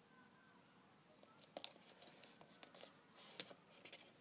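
Faint crackling and ticking of adhesive as a stuck-on card is peeled off a steelbook Blu-ray case, starting about a second and a half in after a near-silent start.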